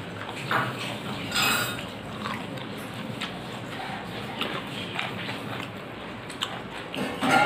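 Eating by hand: chewing, with fingers scraping and mixing rice on a steel plate, giving occasional short clinks and scrapes over a steady hiss.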